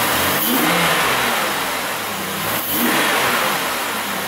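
2007 Chevrolet Impala's 3.5-litre V6 blipped twice from idle, each rev rising and falling back. A little misfire remains, logged on cylinder 1.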